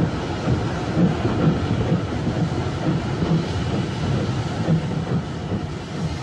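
A train running on rails: a steady rumble with a low beat repeating at even spacing, like wheels passing over rail joints.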